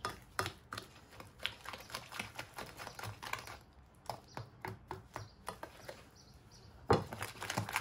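Whisk beating thick chocolate batter in a ceramic bowl: quick, irregular clicks and taps of the whisk wires against the bowl, a short lull near the end, then a louder knock.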